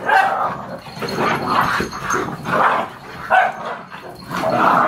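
Several dogs play-fighting, giving short barks and growls over and over, about one burst a second.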